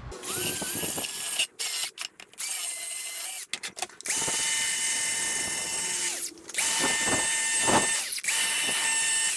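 Small high-speed electric power tool run in about six bursts, each spinning up with a rising whine and then held steady before cutting off, with gaps of under a second between them.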